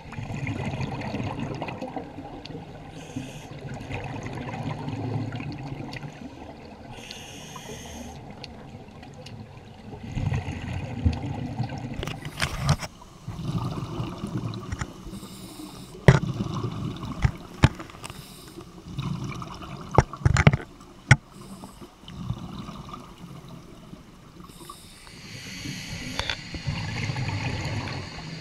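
Scuba diver's breathing heard underwater through the camera housing: long surges of exhaled bubbles from the regulator, with a few short hissing inhalations. Several sharp knocks come in the middle.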